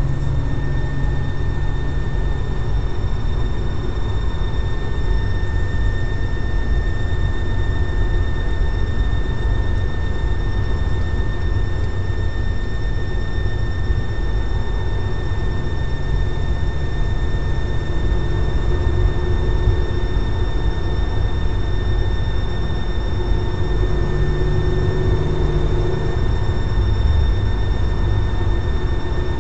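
An R32's engine running over a steady low rumble, with a constant high-pitched squeal that does not change pitch. The owner cannot identify this weird sound.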